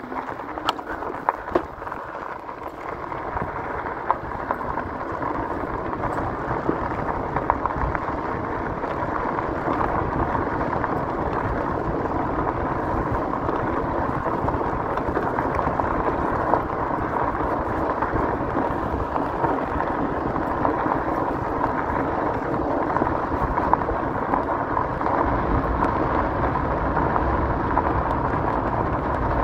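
Riding noise of an e-bike on a gravel trail: tyres crunching over loose gravel and wind rumbling on the microphone, with a steady thin whine underneath. It grows louder over the first few seconds and then holds steady, with the wind rumble heavier near the end.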